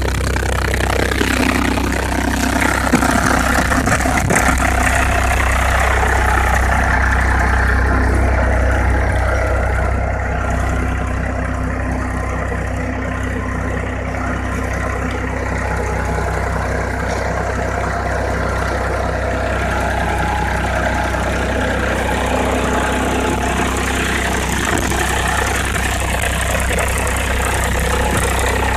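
Powertrac Euro 50 tractor's three-cylinder diesel engine running steadily under load while pulling a plough through the soil.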